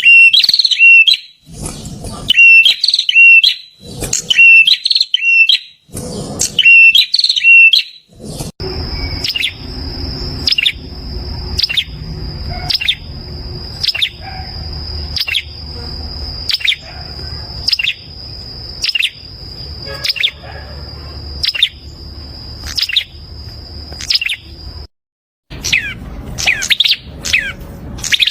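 Prinia (perenjak) calling: short repeated phrases about once a second, then after an abrupt change about 8 s in, quick downward-sweeping chirps about twice a second over a steady high whine and a low hum, which stop near the end as the calls go on.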